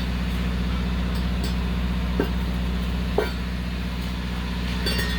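Truck engine idling steadily, a low even drone, with two light knocks about two and three seconds in.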